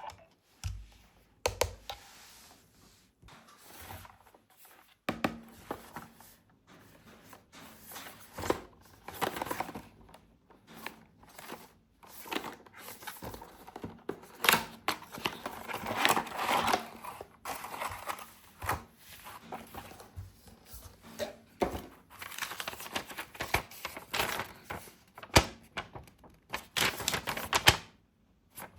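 Hands unboxing a toy: irregular clicks, taps and knocks with crinkling and rustling of plastic and cardboard packaging.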